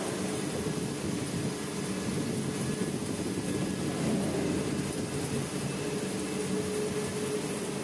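BLIN BL-H40TC CNC lathe running: a steady machine hum at a constant pitch under a dense hiss, without a break.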